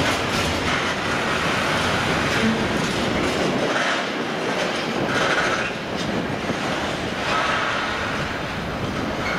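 Freight train of tank wagons rolling away over points, its wheels clacking over rail joints and switches with a steady rumble. A few short wheel squeals come about five and seven and a half seconds in.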